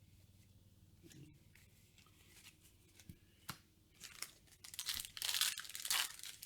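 A Yu-Gi-Oh booster pack's foil wrapper being torn open and crinkled, in rustling bursts that start about four seconds in and grow louder toward the end. Before that there are only a few faint clicks.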